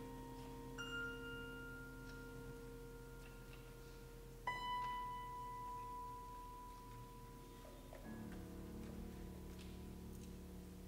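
Grand piano played softly and slowly: single high notes left to ring and fade over held low notes. A new note comes in about a second in, a louder one near the middle, and the low harmony changes about eight seconds in.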